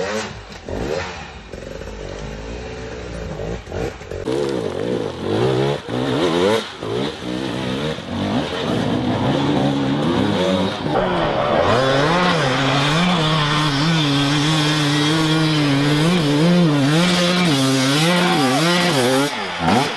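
Enduro dirt bike engine revving under load on a rocky climb, its pitch rising and dipping with repeated throttle bursts. From about twelve seconds in it holds a high, steady rev broken by quick blips.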